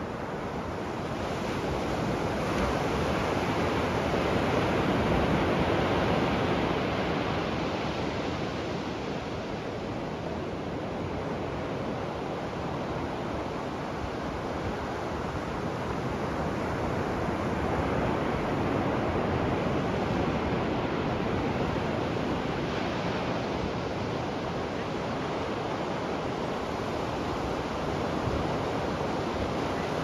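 Ocean surf breaking and washing onto a beach: a continuous rushing that swells and eases slowly, a little louder about five seconds in and again around twenty seconds in.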